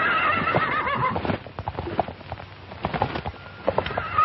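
A horse whinnying, one long wavering call that falls in pitch and ends about a second in, followed by a scatter of hoofbeats.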